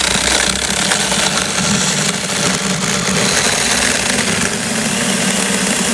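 Saker mini cordless electric chainsaw running steadily, its chain cutting through a small tree trunk.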